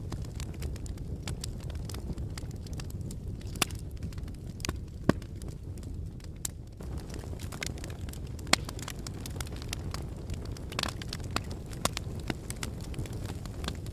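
Wood fire burning in a fireplace: a steady low rumble of flames with scattered crackles and sharp pops, the two loudest pops about five and eight and a half seconds in.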